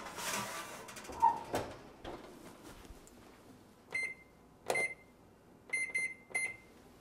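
A metal baking sheet clattering onto the oven rack and the oven door shutting in the first second and a half. Then, a few seconds in, about six short electronic keypad beeps, each one high tone, as a cooking timer is set on the kitchen appliance.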